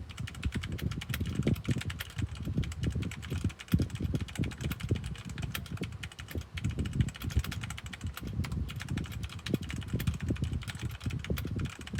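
Fast typing on a stock, unmodded Redragon Fizz mechanical keyboard: a dense, unbroken run of key clacks at about 95 words per minute.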